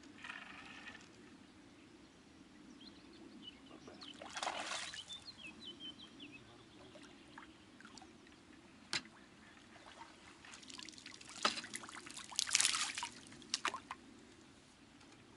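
A hooked fish splashing and thrashing at the river surface as it is played on a pole rod, several short splashes, the loudest cluster near the end as it is drawn toward the landing net.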